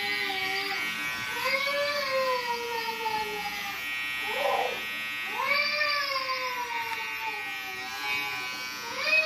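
Cordless hair trimmer buzzing steadily as it cuts along the nape of the neck. Over it come several long pitched calls, each rising and then slowly falling over two to three seconds.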